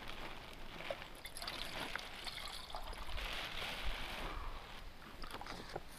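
Water being poured into a small cooking pot, a trickling pour that is heaviest for about a second past the halfway point, with a few light clicks of the pot and bottle.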